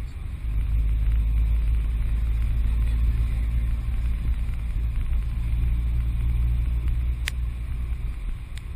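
Steady low rumble of a moving vehicle, heard from on board, with wind noise on the microphone. Two short sharp clicks come near the end.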